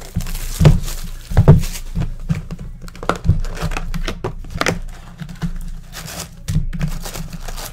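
Plastic shrink-wrap being torn and crinkled off a cardboard trading-card hobby box, a run of sharp crackles, loudest about a second in. The box's cardboard lid flap is then pulled open.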